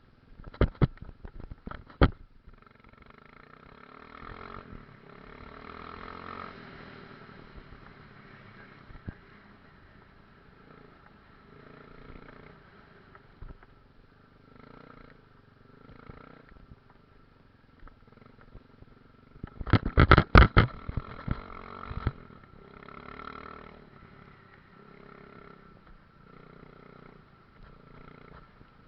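Enduro motorcycle engine running faintly, rising and falling, with sharp knocks and clatter in the first couple of seconds and a louder burst of knocking about two-thirds of the way through.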